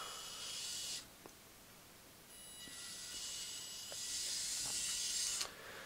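Four small geared DC motors driving the rear wheels of a model MAN dump truck chassis, running at low throttle with a faint high-pitched whirr. They run for about a second, stop, then start again and run for about three seconds, getting louder partway through.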